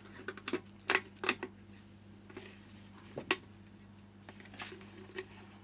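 Plastic parts of an electrical extension board being pressed and fitted together by hand: a handful of sharp clicks and knocks spread over several seconds, over a steady low hum.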